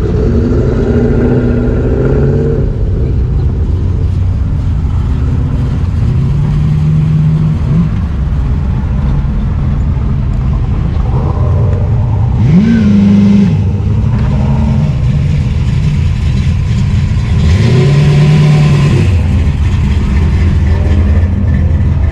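A procession of classic cars, muscle cars and a motorcycle driving past one after another, their engines running steadily under the whole stretch. Several of them rev up and ease off as they pull away: a short sharp rev about halfway through, and a longer, louder rise and fall a few seconds later.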